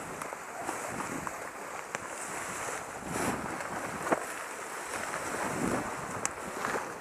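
Wind buffeting the microphone, with rustling noise that swells now and then, and a few short sharp clicks, the sharpest about four seconds in.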